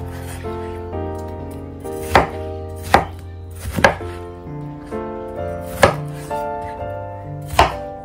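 Chef's knife cutting through watermelon and striking a wooden cutting board: about five sharp knocks, a second or two apart, over soft background music.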